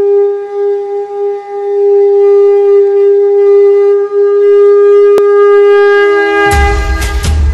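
A long, loud wind-instrument note held at one steady pitch, then a music track with a heavy bass beat and sharp drum hits coming in about six and a half seconds in.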